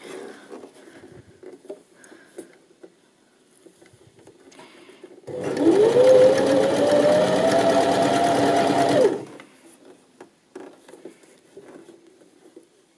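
Janome 725s electric sewing machine stitching a knit cuff for about four seconds, starting about five seconds in: its motor whine rises as it speeds up, runs steadily, then stops suddenly. Before and after it there is only faint rustling as the jersey fabric is handled.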